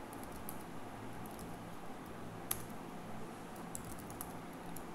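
Computer keyboard keys tapped in scattered clicks, with one sharper keystroke about two and a half seconds in and a quick run of keystrokes near the end, over a steady low hum.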